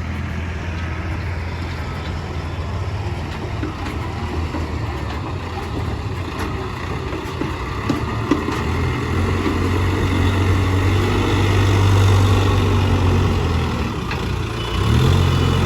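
Diesel engine of a Case 770EX backhoe loader running steadily at work, its low drone swelling louder for a few seconds past the middle. Two sharp knocks come a little over halfway through.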